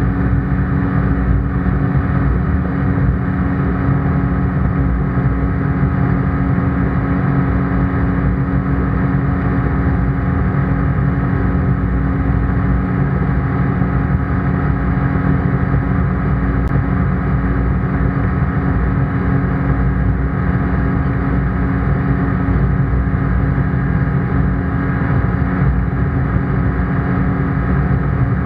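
ICP Bingo ultralight's engine and propeller running steadily in flight, a constant drone heard from inside the cockpit.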